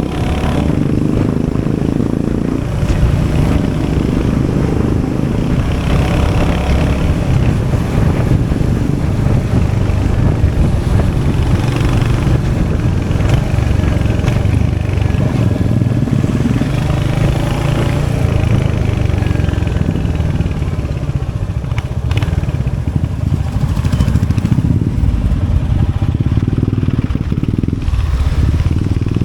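Royal Enfield Hunter 350's 349cc single-cylinder J-series engine running with its exhaust note, loud and continuous, dipping briefly a few times.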